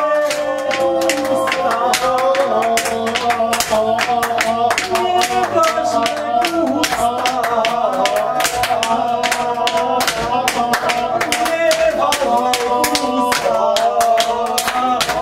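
A group of voices singing together, accompanied by a steady run of sharp claps or clacks.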